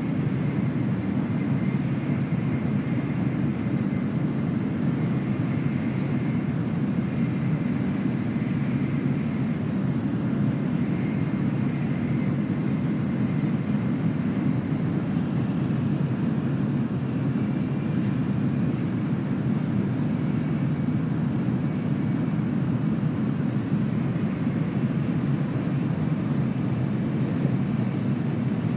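Steady running noise inside the passenger cabin of a Tokaido Shinkansen N700A-series train: a constant low rumble with a faint high whine above it.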